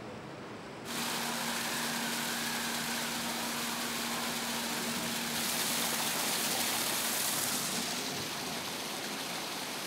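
Water pouring and splashing steadily from a falling water curtain and a churning pool, with a steady low hum under it. The sound starts abruptly about a second in.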